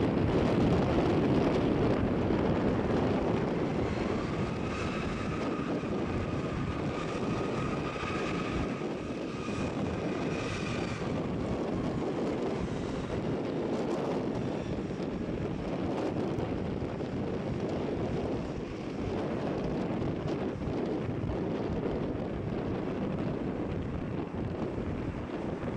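McDonnell Douglas MD-11F freighter's three jet engines running at low power as the plane taxis after landing: a steady jet rumble, with a whine rising above it for several seconds in the first half.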